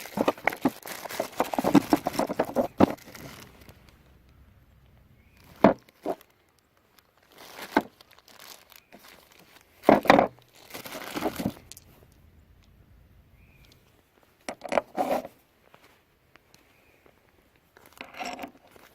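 Crinkling and tearing of packaging being handled, then a handful of separate knocks and clatters spread apart.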